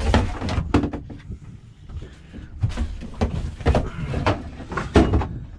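A landing net being pulled out of a small boat's cabin locker: irregular knocks and clatter as its handle and frame bang against the door and the boat's hull, with loud knocks at the start and about five seconds in.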